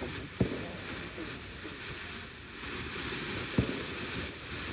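Two dull booms of fireworks, about three seconds apart, over a steady outdoor hiss.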